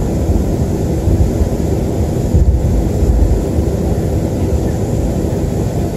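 Cabin noise inside a Boeing 737-300 taxiing for takeoff: a steady low rumble with a faint hum from its CFM56 engines, heard through the fuselage.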